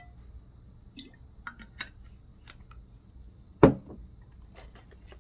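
Small clicks and taps of things being handled on a table, with one loud knock about three and a half seconds in, an object set down on the table.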